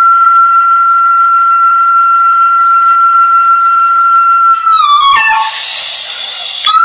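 Hmong raj (bamboo flute) holding one long high note, then dropping through a short run of lower notes about four and a half seconds in. A softer hissy stretch follows before the playing picks up again at the very end.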